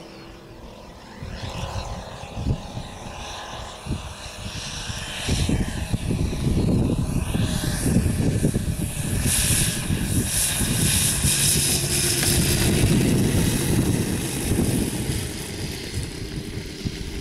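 Engine and propeller of a large RC model F4U Corsair coming in to land, growing louder as it approaches low, loudest as it passes close, then easing off as it rolls out on the grass.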